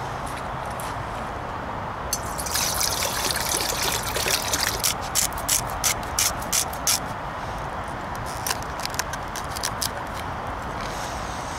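Water poured into a metal cooking pot for about two seconds, followed by a quick run of sharp clicks. Near the end come a few knife taps as broccoli stems are cut on a plastic chopping board.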